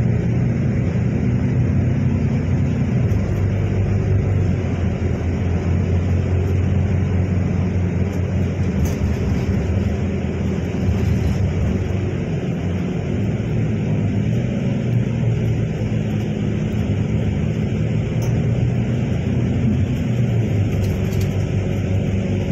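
Steady low drone of a bus engine with road noise, heard from inside the moving bus.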